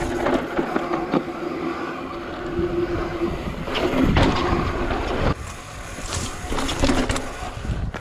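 Trek Slash mountain bike riding down a dirt trail: rushing wind and tyre noise, with a steady hum for the first three seconds and sharp knocks and rattles of the bike over bumps about four, five and six seconds in.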